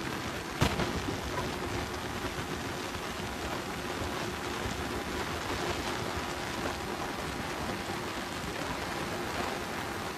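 Steady rush of wind over the microphone of a moving motorcycle, with the engine faintly underneath and one sharp knock about half a second in.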